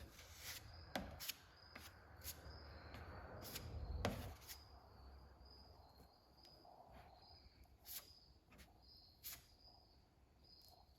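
Faint, evenly repeating insect chirping, with scattered clicks and knocks. A rush of noise builds and ends in a knock about four seconds in.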